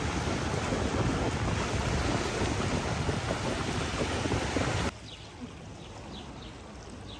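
Loud wind noise rushing and buffeting over the microphone, which cuts off abruptly about five seconds in. It leaves a faint background with a few short high chirps.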